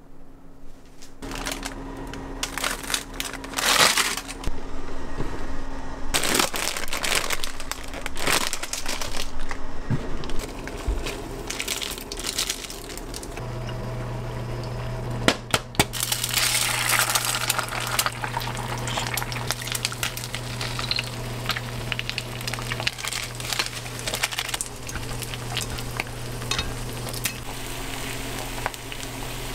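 Eggs frying in oil in a rectangular egg pan on an induction cooktop: a steady sizzle with spitting crackles, over a steady low hum that starts about halfway through. The first half is irregular clicks, rustles and handling knocks.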